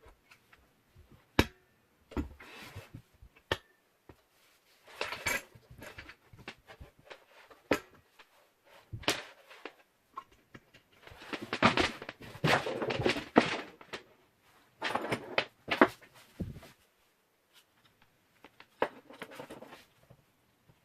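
Handling noise from parts being picked up and set down: scattered sharp knocks and clicks, with a longer stretch of scraping and rustling from about eleven to sixteen seconds in.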